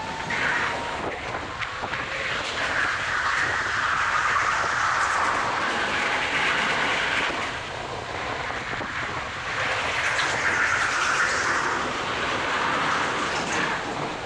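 Go-kart at racing speed, heard from an onboard camera: a continuous mix of motor and rushing air that swells and fades every few seconds as the kart goes through the corners.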